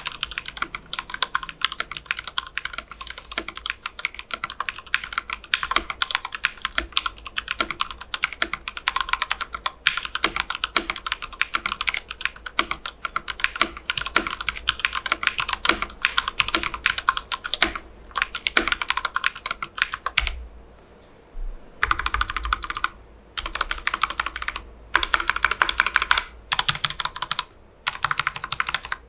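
Fast typing on a Noir N2 mechanical keyboard with heavy linear Gateron Black switches lubed with Krytox 205g0, and dampening foam inside the case: a dense, even run of keystroke clacks. The typing stops for a moment several times in the last third.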